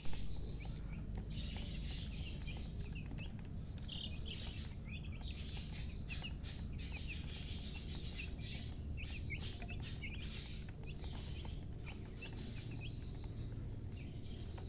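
A group of baby chicks peeping continuously: many short, high, rising cheeps overlapping one another, with scattered clicks in the middle and a steady low rumble underneath.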